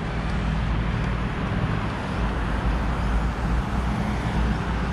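Steady road traffic noise: a low rumble of passing vehicles with no single event standing out.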